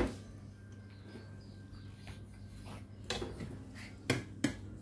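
Light clicks and scrapes of a spoon against a glass baking dish as white sauce is spread over mince: a few sharp taps in the second half, over a faint steady hum.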